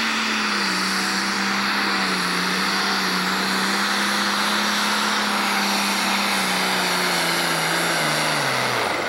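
A Pro Stock pulling tractor's turbocharged diesel engine at full power under load while it drags the weight-transfer sled, a loud steady roar with one sustained engine note. About eight seconds in, the note falls sharply as the engine winds down at the end of the pull.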